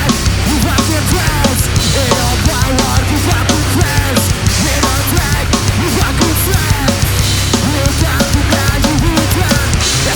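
Live hardcore band playing loud, heavy music with pounding drums, without a break.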